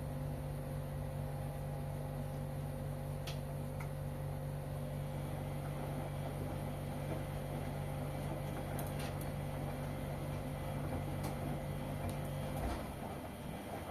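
LG front-loading washing machine running with a steady hum that cuts off near the end, with a few light clicks.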